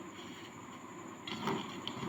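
Packed dry sand being handled: a short gritty crunch a little over a second in, followed by a few faint ticks of grains.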